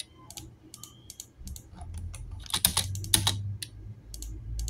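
Computer keyboard keys and clicks being struck while entering drawing commands: scattered single taps, with a quick run of keystrokes a little past the middle.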